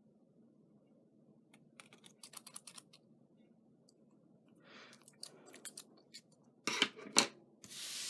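Scissors snipping through paper in short runs of quick clicks, then a few louder brushes and a rustle of paper being handled near the end.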